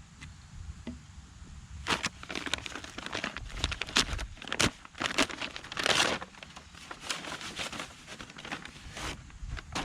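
A mailed package being torn open and its wrapping crumpled: a flurry of crinkling, tearing and crackling from about two seconds in until near the end.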